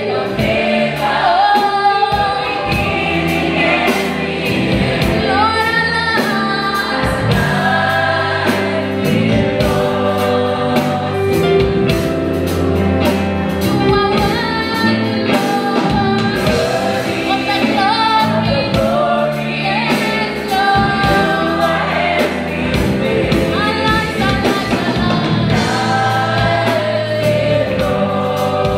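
Live gospel worship song: a female lead singer and a mixed choir singing over a band with a drum kit keeping a steady beat.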